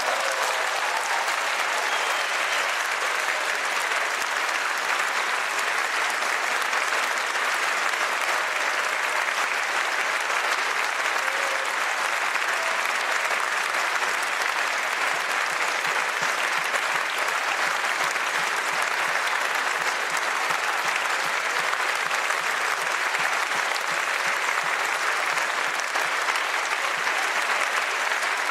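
Concert audience applauding steadily and without a break, the applause following the end of a piece.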